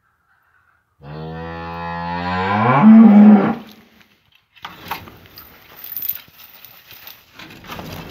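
A cow moos once, a long low call that rises in pitch and grows louder before cutting off. It is followed by scuffling and rustling in the bedding as the newborn calf struggles to get up, and another moo starts right at the end.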